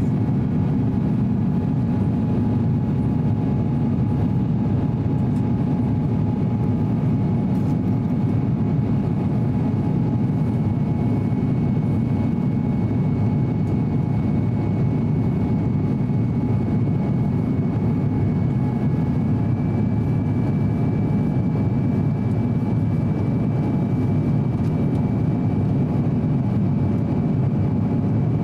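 Steady cabin roar of an Airbus A350-900 in flight, heard at a window seat: engine and airflow noise from its Rolls-Royce Trent XWB engines, with a few faint steady whining tones above it.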